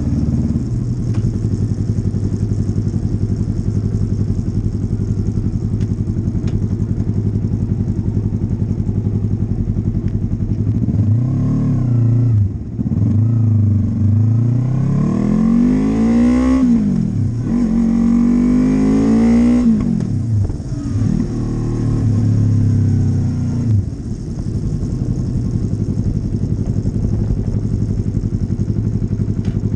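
Yamaha MT-03's 321 cc parallel-twin through an Arrow Pro Race slip-on exhaust, idling steadily, then blipped several times in the middle (pitch climbing, held up briefly and falling back) before settling back to idle.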